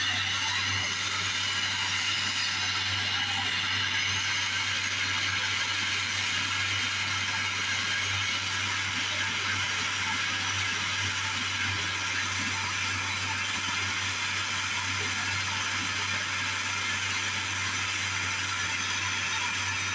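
Jeweler's torch flame hissing steadily, melting small cut pieces of metal into design balls.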